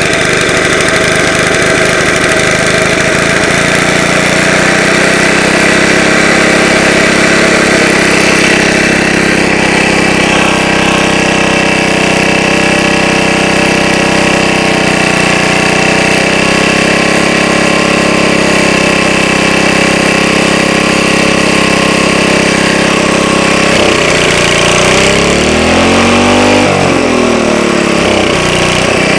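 Vintage 2-horsepower Briggs and Stratton single-cylinder engine running steadily while its carburettor is being adjusted. Near the end the engine speed drops and swings up and down for a few seconds, then settles.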